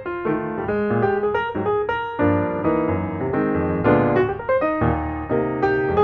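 Background piano music: a steady, flowing run of notes and chords.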